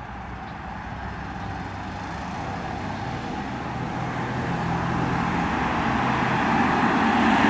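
A road vehicle approaching, its engine and tyre noise growing steadily louder, over a low engine hum.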